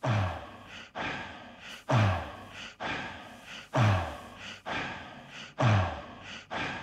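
Sparse electronic beat from a film soundtrack: a deep drum-machine kick that drops in pitch sounds about every two seconds, with hissing, breath-like noise swells in between.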